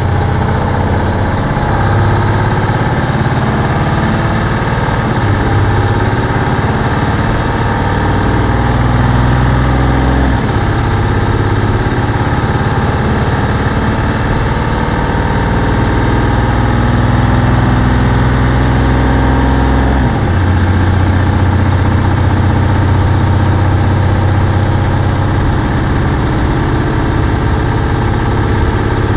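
Bus engine running as the bus drives along, heard from inside the cabin, its note shifting twice, about ten and twenty seconds in, with a faint high whine over it.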